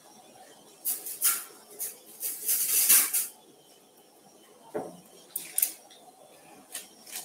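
Scattered light clinks of steel surgical instruments, with a longer crinkling rustle of handled packaging between about two and three seconds in.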